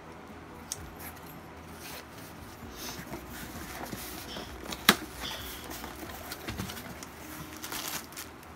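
Cardboard shipping box being worked open by hand: cardboard and packing tape rustling and scraping, with a sharp snap about five seconds in.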